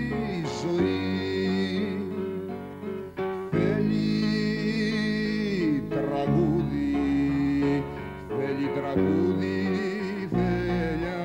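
A slow song: a singing voice holding long, wavering notes over instrumental accompaniment.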